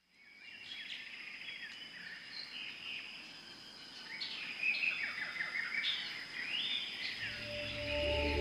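Several songbirds chirping and warbling over one another, with a steady high-pitched whine behind them. Soft music with a low bass fades in near the end.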